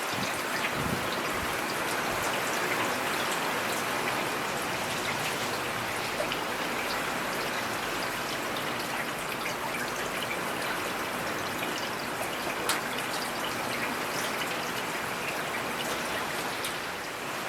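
Steady rain falling, an even hiss of rain with scattered individual drop ticks.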